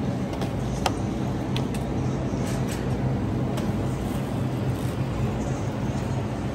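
Shopping cart rolling across a smooth store floor: a steady low rumble, with a few light clicks.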